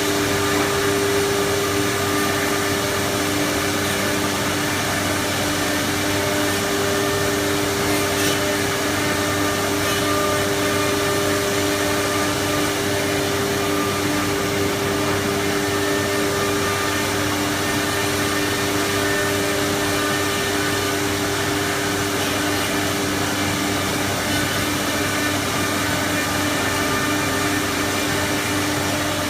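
4-axis CNC wood router running steadily: a constant whine with two steady tones over an even rushing hiss.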